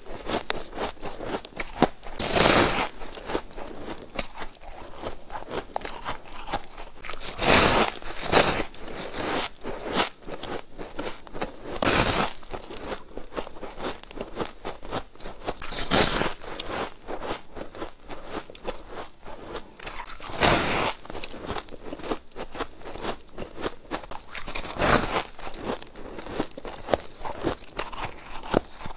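A person biting and chewing blocks of compacted powdery white ice: a loud crunching bite every few seconds, about seven in all, with crackly chewing between.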